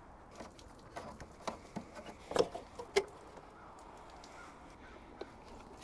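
Scattered clicks and knocks of an Audi Q7's plastic air intake parts being unclipped and handled by hand, loudest about two and a half and three seconds in, then only faint background.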